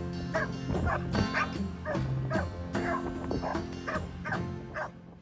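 Dog yipping and whining excitedly while greeting its owner, short high cries about two a second, over background music.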